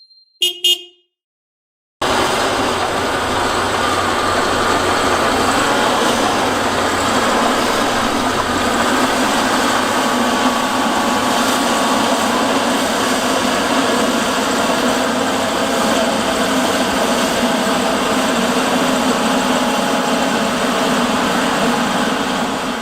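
A short chime, then after a moment's silence a construction vehicle's engine running steadily for a long stretch, fading out near the end.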